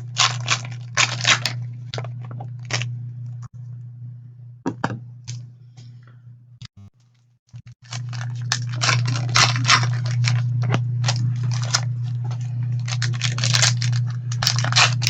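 Irregular crinkling and tearing of trading-card packaging as cards are unwrapped and handled, sparse in the middle and busier in the second half, over a steady low electrical hum.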